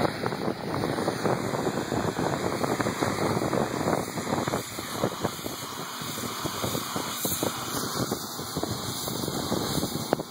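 High-pressure washer wand spraying a jet of water onto a wind turbine's nacelle: a loud, steady rushing hiss with a crackly, spattering texture.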